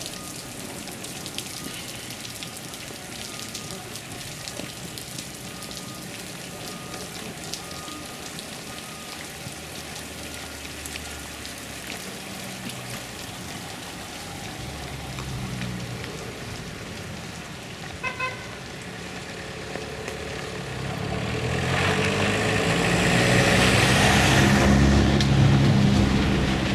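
Local service bus running, with a light crackling rattle throughout and a quick double toot of a horn about two thirds of the way through. Near the end the engine noise swells much louder and deeper as the bus pulls hard.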